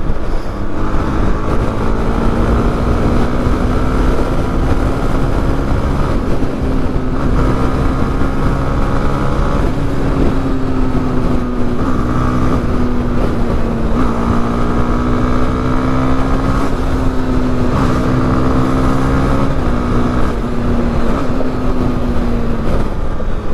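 Honda Twister motorcycle's single-cylinder engine running steadily while riding on the road. Its tone shifts in pitch a few times, with wind and road noise underneath.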